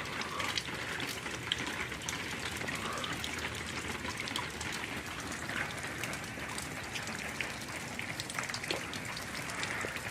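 Rain falling steadily: a continuous hiss dotted with many sharp ticks of individual drops.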